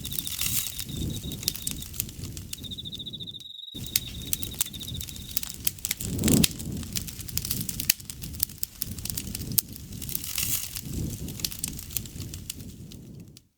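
Wood campfire crackling and popping, with a soft rush of flame about six seconds in. An insect trills steadily through the first part.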